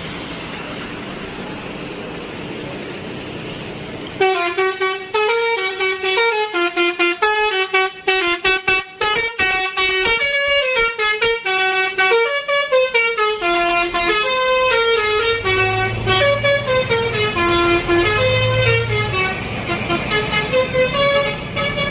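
Basuri telolet bus horn playing a fast tune of stepping notes that rise and fall every fraction of a second, starting about four seconds in after steady road and engine noise.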